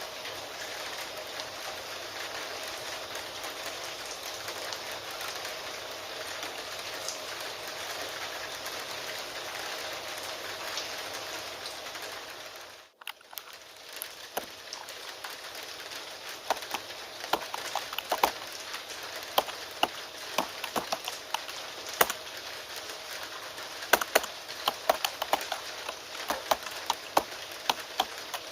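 Steady rain hiss. About 13 s in it dips out briefly, then returns with rapid, irregular computer-keyboard key clicks typing over the rain, growing busier toward the end.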